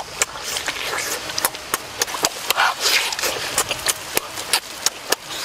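Close-up mouth sounds of eating small juicy yellow fruits: wet clicks and lip smacks several times a second, with a short sucking noise about halfway through.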